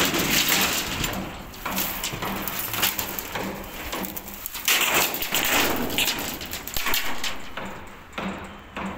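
Old green tarpaulin being handled: rough rustling and dragging swells with scattered knocks and clicks.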